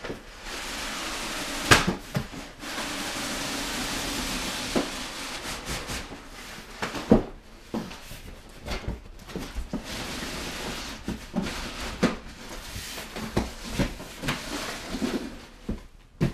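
Cardboard scraping and rustling as a long inner cardboard box is worked out of its outer shipping box, with many sharp knocks and thumps from the boxes being handled.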